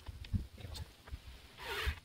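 Low knocks of metal parts being handled and fitted, then near the end a brief burst of a cordless drill driving in a mounting bolt, a short raspy whirr.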